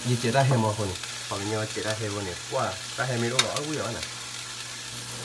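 Food frying in a pan with a steady sizzle, under a man's talking. A sharp click sounds about three and a half seconds in.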